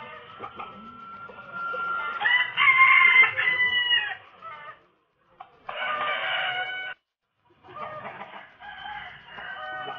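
Roosters crowing, one long crow after another: the loudest crow comes about two seconds in, a shorter one near six seconds, and more crowing near the end.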